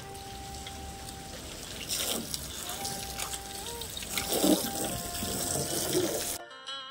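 Water splashing and trickling over a car being washed by hand, with a few louder splashes, under faint flute music. Near the end the water sound cuts off suddenly and only the music remains.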